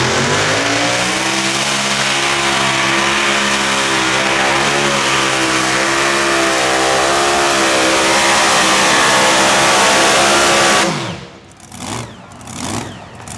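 Mini modified pulling tractor's engine at full throttle, pulling the sled. Its pitch rises at the launch and then holds high and steady. About eleven seconds in the engine sound drops off sharply.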